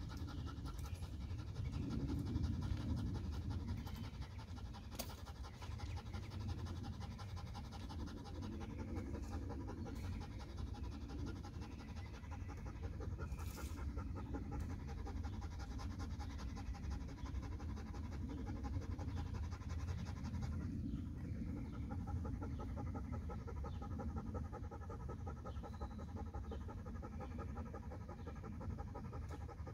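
Dog panting steadily.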